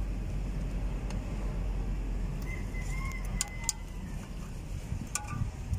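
Light metallic clinks of a hand tool and steel return springs as the springs are hooked onto truck drum-brake shoes, a few sharp clicks after the middle and near the end. A steady low rumble runs underneath.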